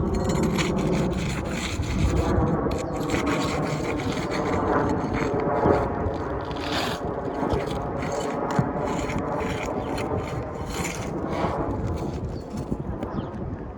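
Repeated scraping and rubbing as roof shingles are worked loose, breaking them free to get at the nails beneath.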